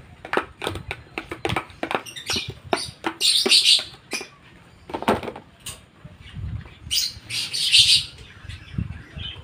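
Caged pet lovebirds and parakeets chirping, with two loud, harsh calls about three seconds in and again near the end. Over them, a metal spoon clicks and scrapes against plastic as boiled egg is spooned from a plastic tub into a basin of soft food.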